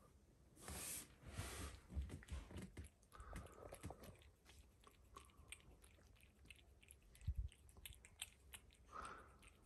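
A cat eating wet cat food from a small ceramic bowl: faint, quick chewing and lapping clicks, with a soft thump about seven seconds in.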